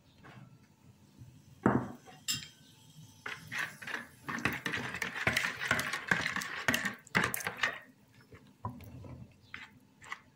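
A spoon stirring a wet batter in a mixing bowl, scraping and clinking against the sides. There is one sharp knock a couple of seconds in, and the stirring is busiest in the middle.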